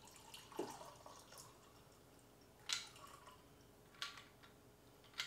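A cocktail is poured from a cocktail shaker through its built-in strainer into a stemmed glass: a faint trickle of liquid with a few drips.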